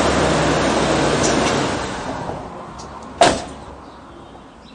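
Pickup truck engine running with a low, steady hum, then dying away over the next two seconds. A single sharp knock comes about three seconds in.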